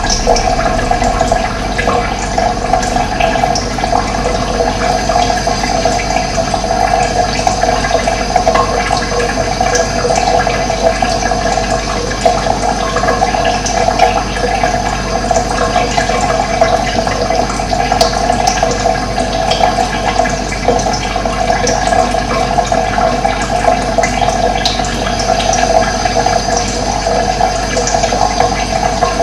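Running water with a steady, unbroken rush.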